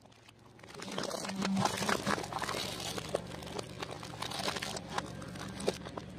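Candy-covered eggs being crushed under a car tyre: a dense run of crackling crunches and sharp snaps that starts about a second in.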